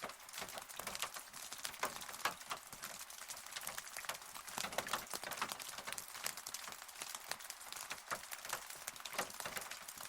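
Steady rain, with many close, separate drops pattering irregularly on a hard surface over a soft hiss.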